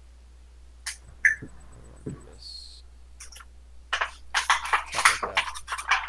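Sleeved playing cards being handled on a playmat: a couple of light clicks about a second in, then from about four seconds on a dense run of quick clicks and rustles as the cards are moved.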